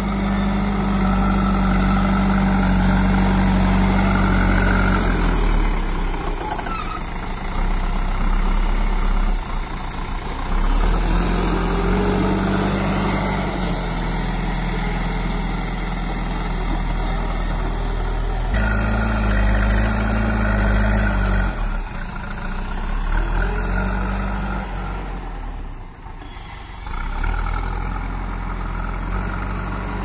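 Diesel engine of a JCB 3DX backhoe loader running, revving up in several surges and dropping back to a lower note between them as the loader lifts, drives and tips its front bucket of soil.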